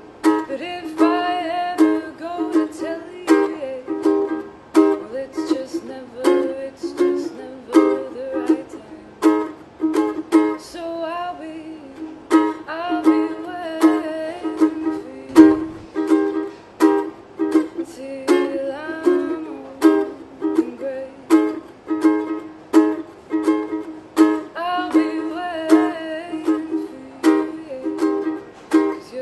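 Ukulele strummed in a steady rhythm while a woman sings along in phrases with short instrumental gaps between them: a live solo song with ukulele accompaniment.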